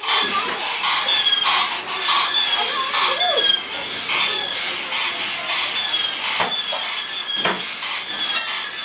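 Sound effects of a dark ride's animated scene: short high chirps repeating about every half second, a few sharp clicks, and brief voice-like sounds.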